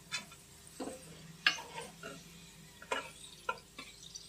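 Steel spoon scraping and clinking against a kadai and a steel plate as crisp fried onion slices are scooped out, about six separate short knocks.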